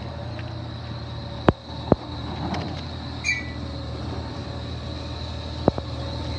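Garbage truck engine running steadily, with three sharp metallic knocks and a brief high chirp about three seconds in.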